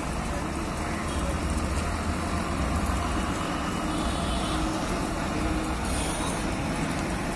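Diesel city bus engine running as the bus pulls slowly past close by, over a steady background of road traffic.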